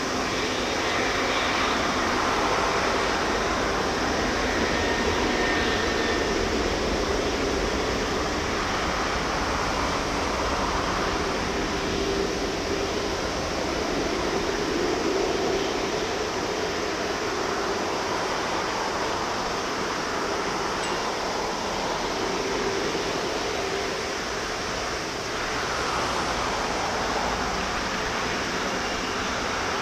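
Boeing 777-200ER's twin jet engines at taxi power as the airliner rolls past: a steady rush of engine noise with faint held tones.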